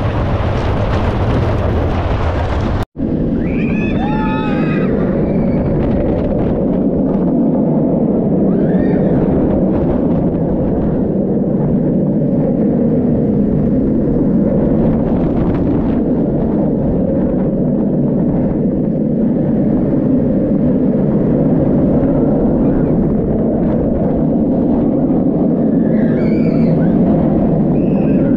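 Steady wind noise on the microphone and wheels rumbling on the track during a roller coaster ride. The sound cuts out for an instant about three seconds in, as a wooden coaster gives way to a steel one. Riders scream briefly just after the cut and again near the end.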